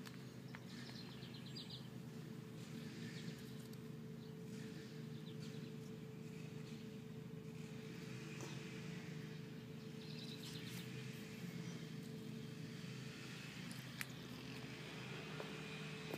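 Faint outdoor ambience: a steady low hum with one constant tone running under it, and a few faint bird chirps about a second in and again around ten seconds. A single sharp tick comes near the end.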